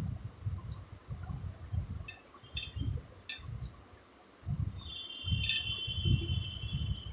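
Close-miked chewing and mouth sounds, with a few sharp clinks of a utensil against a dish. A thin high ringing tone is held through the second half.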